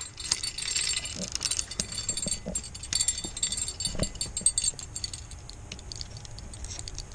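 Irregular light metallic jingling and clicking from a spinning rod and reel being handled.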